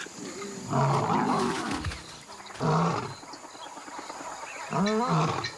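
Lions snarling and growling in three short, harsh bursts; the last one rises and falls in pitch like a moaning growl.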